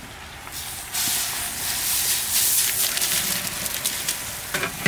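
Dry lentils poured into hot oil in a large aluminium pot, hitting the oil with a loud, steady sizzle that starts about a second in: the lentils frying before the rice goes in for khichdi.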